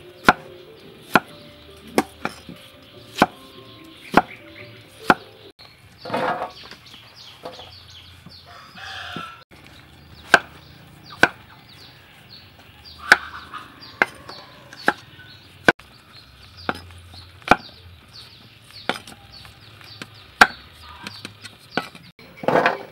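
Steel cleaver chopping carrots on a wooden chopping board, single sharp knocks about once a second. Chickens call a few times in the background.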